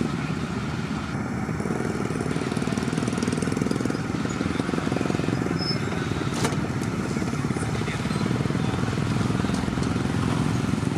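Heavy truck engine running steadily, with a fast, even pulsing. A single sharp click about six and a half seconds in.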